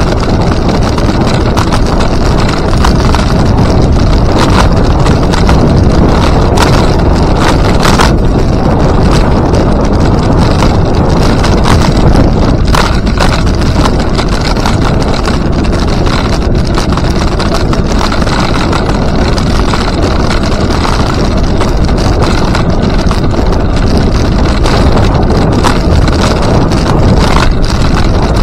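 Wind buffeting a moving microphone: a loud, steady rumble, with a few sharp clicks scattered through it.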